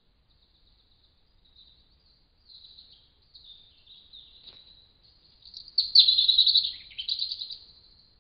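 A small songbird singing in high, rapid trills, faint at first and loudest about six seconds in, then trailing off.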